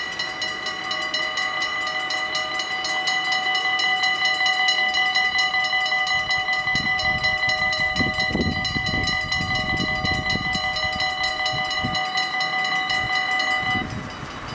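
Two mechanical level-crossing bells ringing rapidly and steadily while the half-barriers come down, then stopping abruptly once the barriers are fully lowered. Some uneven low rumbling comes and goes midway.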